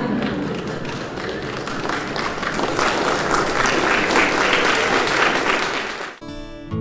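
A crowd applauding, dense steady clapping that cuts off abruptly near the end, where music begins.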